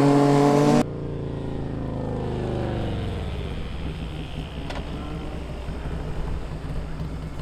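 Sport motorcycle engines on a canyon road: a loud, steady high-revving engine note cuts off abruptly under a second in. A quieter bike follows, its pitch falling over about two seconds as it passes and moves off, then settling into a steady low engine hum.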